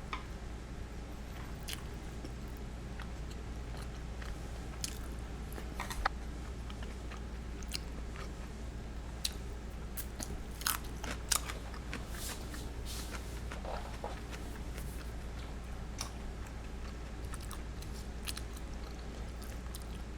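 Close-up biting and chewing of crispy deep-fried karaage chicken, with scattered sharp crunches, a few louder ones around the middle, over a steady low hum.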